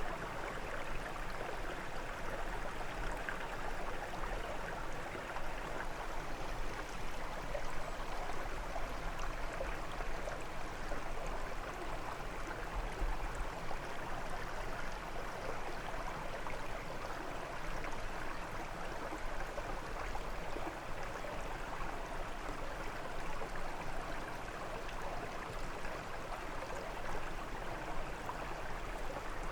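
A brook running steadily over stones, a continuous babbling rush of water.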